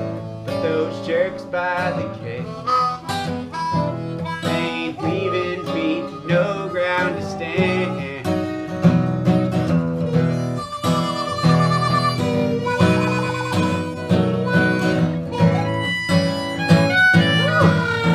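Acoustic string band playing an instrumental break: acoustic guitar strumming and banjo picking under a harmonica lead, with a wavering held note about eleven seconds in.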